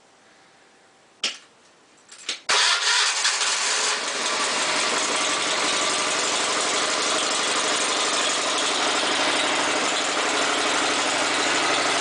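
Wood-Mizer LT40 HD G24 sawmill's gasoline engine being started: a click about a second in, a few more clicks, then the engine catches about two and a half seconds in, runs loud for a moment and settles into steady running.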